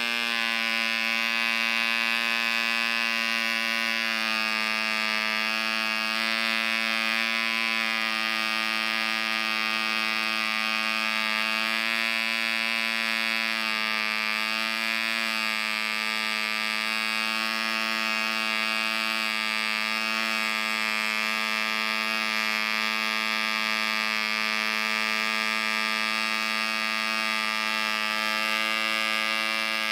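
Red Fin 0.49 cc model two-stroke diesel engine running at speed with a steady buzz, its pitch wavering slightly now and then.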